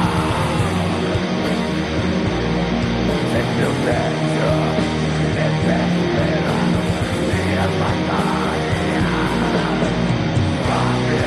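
Black metal music: a continuous wall of distorted electric guitars.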